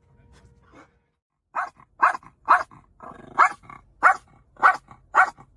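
A dog barking repeatedly in short, sharp barks, about two a second, starting about one and a half seconds in.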